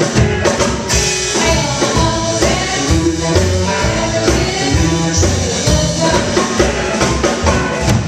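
Small live band playing a rhythm-and-blues number, with upright bass, percussion and a woman singing into a microphone.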